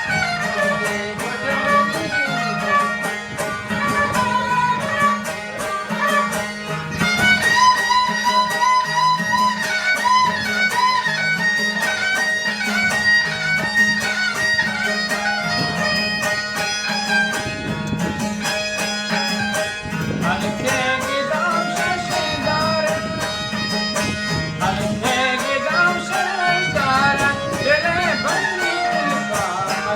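Background music: an instrumental with a wavering melody over a steady low drone.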